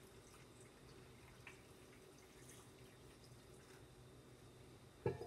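Faint trickle and drips of water poured from a jug into a slow cooker packed with meat and vegetables. A single short knock near the end.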